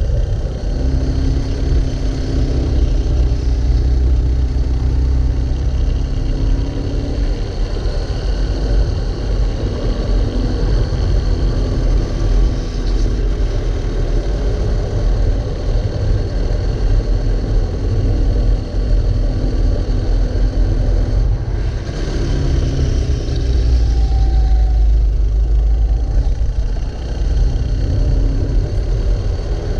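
Racing kart engine heard from on board, running hard through a lap. Its pitch climbs on the straights and falls away into the corners, over and over.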